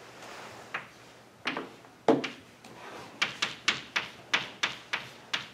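Chalk writing on a blackboard: a faint scrape, then a few sharp taps, then a quick run of chalk taps about four a second over the last two seconds as symbols are written.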